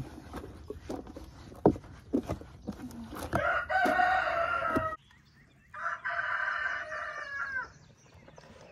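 A rooster crowing twice, each crow lasting a couple of seconds; the first cuts off suddenly and the second falls away in pitch at the end. A few sharp knocks come before the crows.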